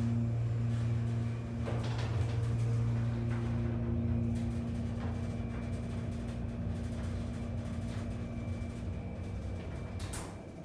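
Schindler 330A hydraulic elevator car travelling up: a steady low hum that eases off near the end, then a sharp click as the car stops.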